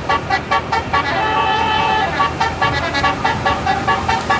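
Tour bus's basuri telolet horn playing a fast tune of short notes, with one longer held note from about one to two seconds in.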